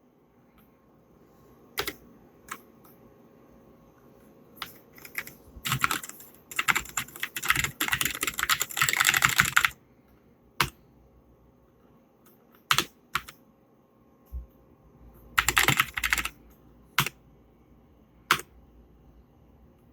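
Keychron K6 mechanical keyboard with brown optical switches and PBT double-shot keycaps being typed on. There are single keystrokes here and there, a fast run of typing from about six to ten seconds in, and a shorter run a little past the middle.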